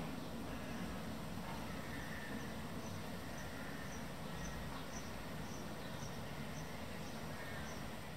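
Steady outdoor background rumble. From about two seconds in, faint short high peeps repeat roughly twice a second.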